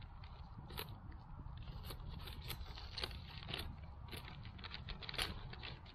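Faint crinkling and scraping of plastic packaging: an MRE flameless ration heater pad being worked down into its plastic heater bag, a string of short irregular crackles.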